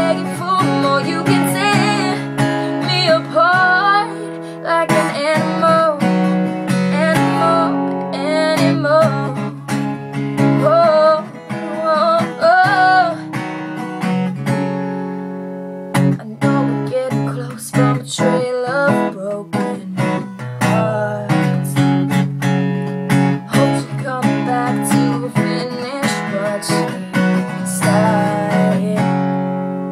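Acoustic guitar strummed and picked, with a young woman singing over it. About halfway through, the sound dies away for a second or two, then the guitar strikes up again.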